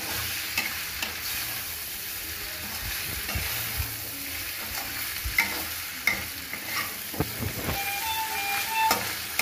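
Metal spoon scraping and knocking against an aluminium kadai as boiled macaroni and vegetables are stirred, over a steady sizzle from the pan on the gas flame.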